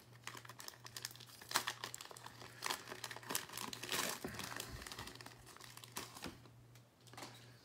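Foil trading-card pack wrapper being torn open and crinkled by hand, a run of irregular crackles that thins out near the end.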